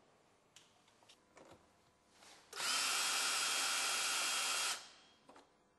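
Cordless drill-driver running steadily for about two seconds, turning the adjustment screw on a Blum AVENTOS HL lift mechanism. A few light clicks and knocks come before and after it.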